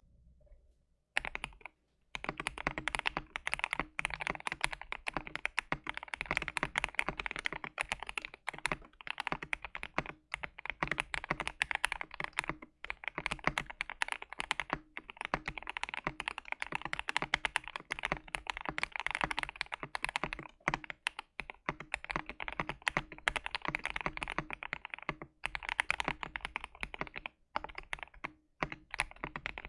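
Mechanical keyboard being typed on fast and continuously: a KBD67 Lite with a modified gasket mount and JWK Black linear switches, modded for a brighter, higher-pitched and louder sound than the stock board's deep thock. The typing starts about a second in and stops briefly a few times.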